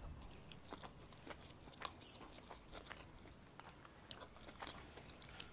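Faint chewing of a mouthful of tortellini salad, with soft, irregular mouth clicks.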